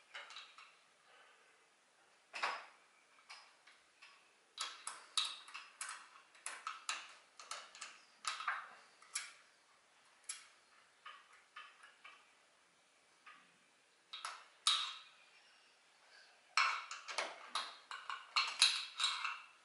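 Small metal clicks and taps of a hex wrench working the head-box screws out of a Prodigy quilter's metal housing. They come in irregular bursts, busiest in the last few seconds, with a quieter stretch near the middle.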